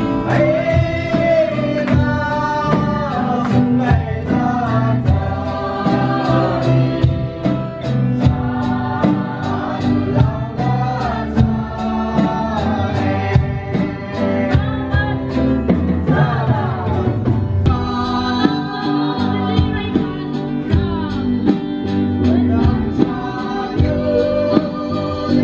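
Live band music: an electric bass and an electronic drum kit keeping a steady beat under group singing.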